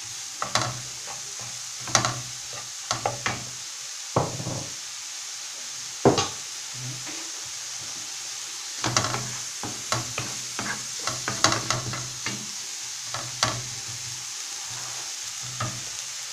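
Chopped onion and garlic sizzling in oil in a nonstick frying pan, with a steady hiss throughout. A wooden spoon stirs them in irregular strokes, scraping and tapping on the pan, most busily in the second half.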